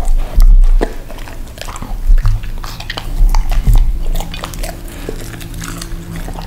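A dog chewing a mouthful of flaky pastry: a run of wet bites and crunches, loudest in the first second, easing off as it finishes and licks its lips.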